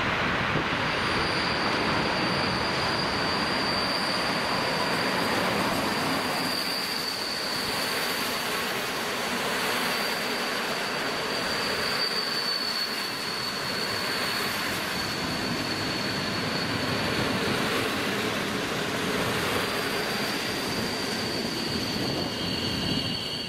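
Passenger train coaches rolling past at close range: a steady rush of wheel and rail noise with a thin, steady high-pitched whine held almost throughout.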